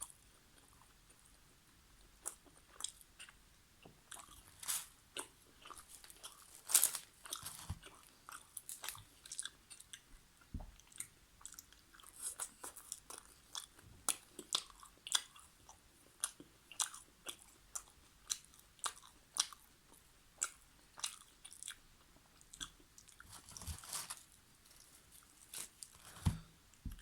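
Close-miked eating of chicken karahi with naan: steady chewing and biting, a continual run of short sharp mouth clicks, a few a second.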